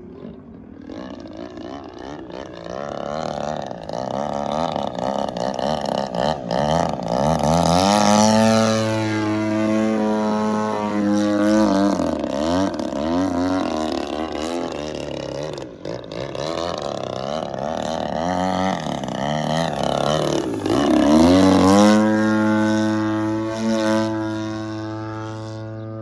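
GP-76cc gasoline engine and 24x9 propeller of a large aerobatic RC plane running in flight. The engine note keeps rising and falling as the throttle changes, with the pitch sweeping down and back up as the plane swoops past.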